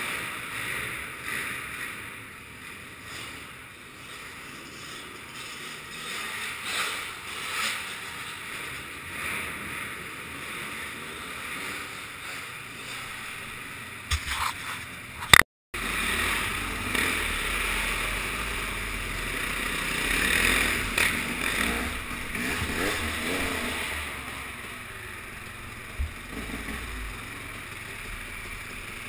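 Dirt bike engine running and revving as the bike is ridden over a dirt track, heard from a helmet-mounted camera. A sharp knock about halfway through, then the sound cuts out for a moment.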